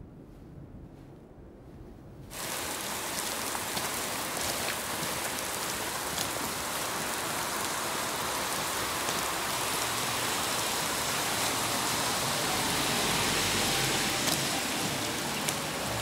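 Steady rain falling on a wet street, a dense even hiss with scattered drop ticks. It starts abruptly about two seconds in, after a quiet stretch.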